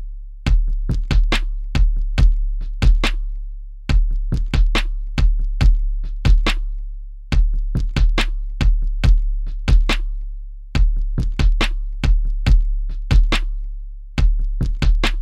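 Drum machine beat: sharp electronic percussion hits over a sustained deep bass tone, in a short pattern that loops about every three and a half seconds.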